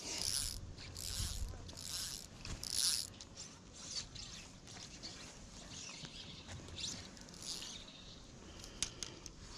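Fly reel's click-and-pawl drag buzzing in four short bursts, about one a second, as line is stripped off it by hand. Softer rasps of line moving follow, with a few sharp clicks near the end.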